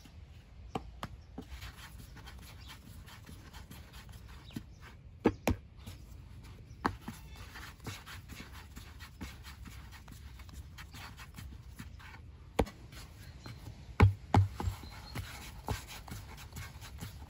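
Hands rolling and shaping balls of bread dough on a floured wooden board: soft rubbing and pressing of the dough, with scattered sharp taps on the board. The loudest taps come in pairs about five seconds in and about fourteen seconds in, over a low steady hum.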